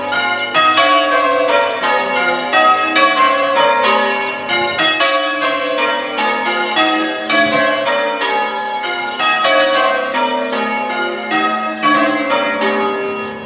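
Ring of six church bells being rung in changes, the strikes following one another in quick, even succession. The ringing dies away at the very end.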